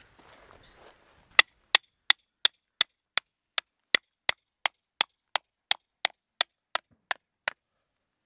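A tent peg being hammered in with a mallet: a run of about eighteen sharp, evenly paced knocks, roughly three a second, starting about a second and a half in, the first few the loudest.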